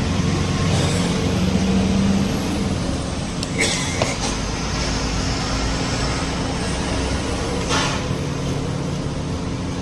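A large knife scraping across a whole tilapia on a wooden chopping block, in two short strokes: one about four seconds in and one near eight seconds. Under it runs a steady low rumble and hum.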